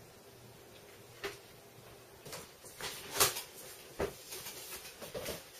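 Cardboard box being handled and its flaps pulled open: scattered rustles and sharp knocks, the loudest about three seconds in.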